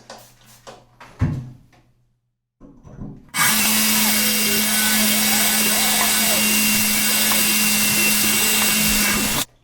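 Power drill with a 1/4-inch diamond bit grinding a hole through porcelain tile, after a few light knocks; it starts about a third of the way in, runs steadily, and stops abruptly near the end as the hole is finished.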